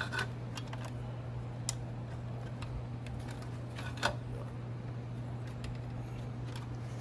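Light scattered clicks and ticks of wires and terminals being handled against a sheet-metal blower housing, with one sharper click about four seconds in, over a steady low hum.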